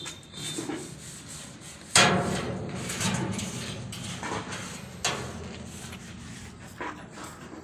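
Loud metallic bang about two seconds in that rings on for a second or more, then a sharp clank about five seconds in and a few lighter knocks: metal being struck with a hammer or banged together.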